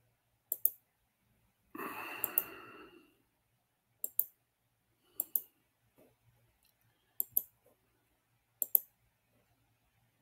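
Computer mouse clicks, mostly in quick pairs, coming every second or so, with a short burst of noise lasting about a second about two seconds in.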